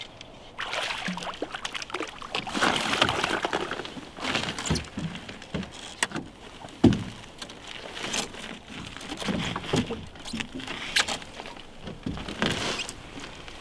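Water splashing and irregular handling noise (rustling, clicks and knocks) as a perch is brought in from the stream and landed.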